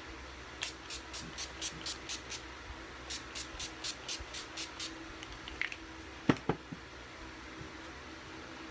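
Fine-mist setting spray bottle spritzed onto the face in quick succession: short hissing sprays about five a second, in two runs of a couple of seconds each, setting the makeup. A single sharp click follows about six seconds in.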